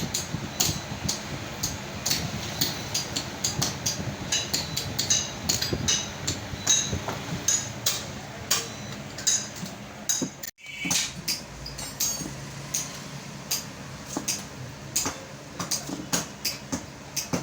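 Hammer blows on metal, a steady run of sharp strikes at about two to three a second, broken off for an instant about ten seconds in.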